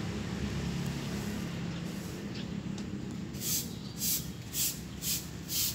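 A steady, low engine-like hum. A little past halfway, short hissing strokes begin, repeating about twice a second.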